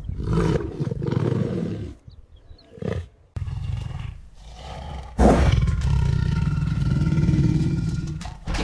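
Big cat roaring and growling in several separate takes that cut in abruptly, the loudest starting about five seconds in.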